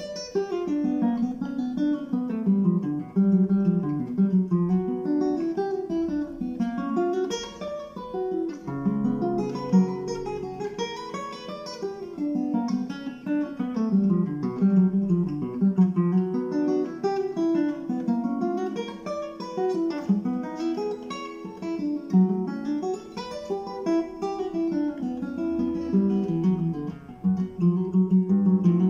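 Solo classical guitar played fingerstyle on nylon strings: a steady stream of quick plucked notes moving up and down in pitch, with a low bass note held for a couple of seconds about nine seconds in.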